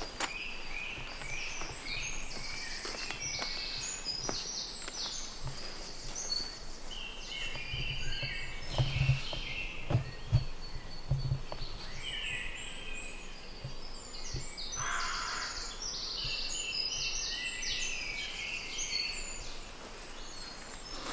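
Several woodland songbirds singing, short repeated phrases of chirping notes overlapping one another. A few dull thumps come about halfway through.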